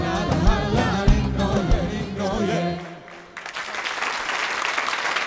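Singers and a live band ending a song, the music stopping about three seconds in; then the studio audience applauds.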